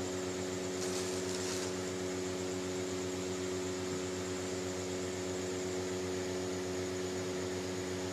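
Steady electrical machine hum: several low steady tones with a hiss above, unchanging throughout, with a brief soft scrape about a second in.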